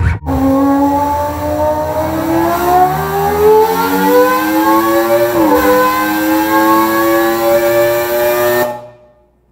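An electronic tone from the LG OJ98 party speaker, set off from its DJ controls. It glides slowly upward for about five seconds, dips briefly, holds steady, then fades away near the end.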